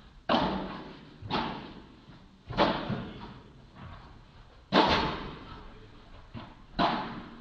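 Padel rally: the ball popping sharply off rackets and court, five strong hits and one weaker one about one to two seconds apart, each echoing in a large hall.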